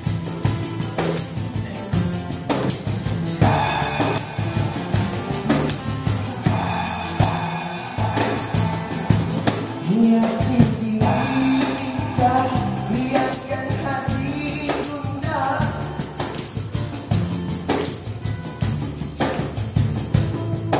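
Live acoustic band playing a song: acoustic guitars strumming under a tambourine shaken in a steady rhythm, with sung vocals.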